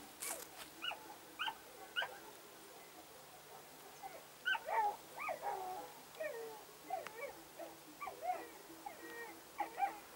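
Setter puppy whining: a run of short, high cries that rise and fall, some drawn out, from about a second in to near the end. A short burst of noise at the very start.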